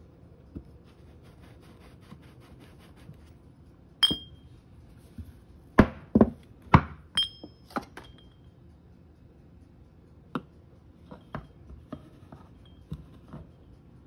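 Stainless steel espresso tamper and portafilter knocking and clinking against each other: a run of sharp knocks, some with a brief metallic ring, loudest about six to seven seconds in, followed by lighter clicks as the tamper is set down and the distribution tool is fitted on the basket.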